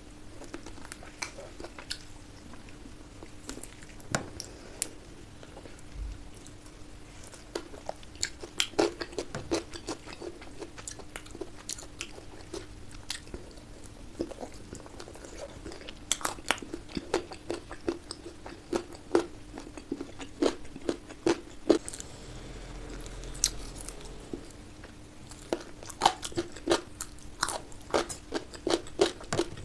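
Close-miked chewing and biting of curry and rice: a dense run of sharp wet mouth clicks and crunches, over a faint steady hum.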